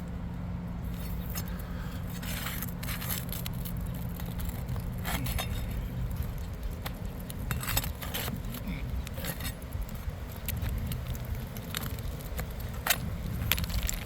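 Scattered sharp clicks, clinks and scrapes over a steady low rumble, with a couple of louder clinks near the middle and toward the end.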